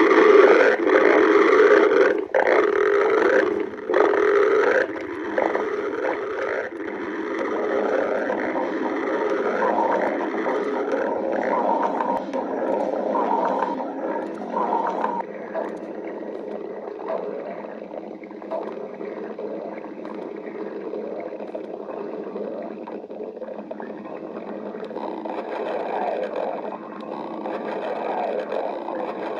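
Stomach growling: a long, continuous run of gurgling rumbles that waver in pitch. It is loudest in the first few seconds, where it breaks off abruptly several times, then settles into lower, steadier gurgling that swells again near the end.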